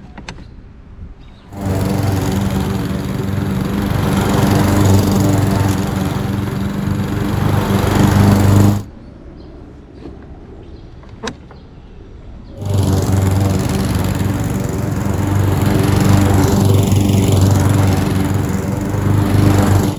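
Husqvarna HU700H push mower's engine running under load as it cuts tall, thick grass, in two stretches that start and stop abruptly, with a quieter gap between them.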